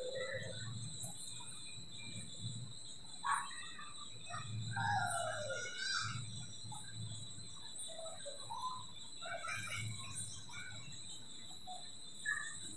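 Outdoor garden ambience: a steady high insect drone with scattered short bird chirps, and one longer falling call about five seconds in.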